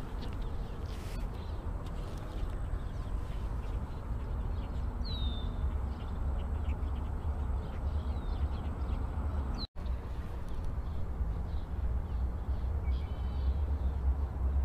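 Outdoor ambience on open water: a steady low rumble of wind on the microphone, with a few short, high, falling bird chirps about five, seven and nine and a half seconds in.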